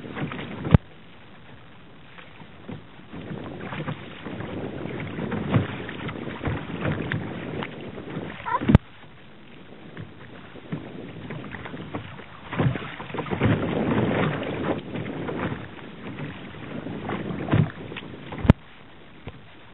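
Kayak paddle strokes splashing and water sloshing against the kayak's hull in uneven swells. Three sharp knocks stand out: near the start, about halfway through, and near the end.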